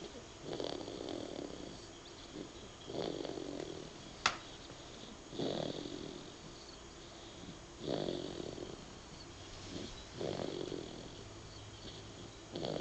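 A man snoring in his sleep, one rough snore about every two and a half seconds. A single sharp click comes about four seconds in.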